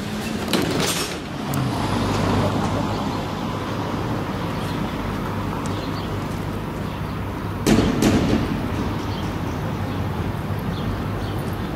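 Düwag GT-W D8 articulated tram: a few clicks from inside the car at first, then a steady low hum as the tram runs along street track. About two-thirds of the way through come two loud knocks close together as its wheels cross the trackwork.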